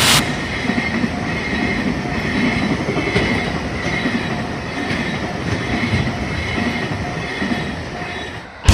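Freight train rolling past: a steady rumble of wagon wheels on the rails, with a faint thin wheel squeal held over it. The sound eases slightly near the end and then cuts off abruptly.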